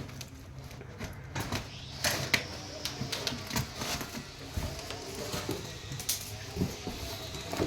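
Irregular clicks, taps and light knocks, the sound of packaging being handled and opened by hand, busier from about two seconds in.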